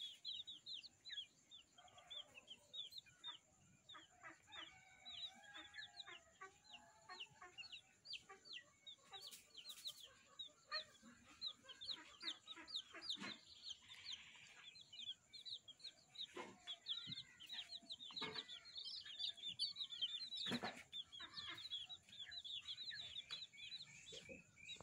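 Baby chicks peeping continuously: many short, high, falling cheeps overlapping each other, with a few faint thumps among them.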